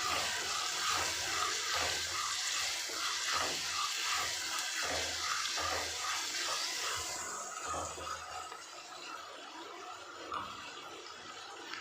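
Onions, tomatoes and green chillies frying in hot oil in a clay pot: a steady sizzling hiss that dies down after about seven seconds.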